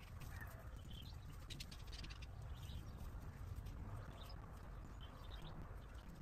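Faint rustling and small ticks of hands working potting soil and plants in a planter box, with birds chirping faintly now and then over a low steady rumble.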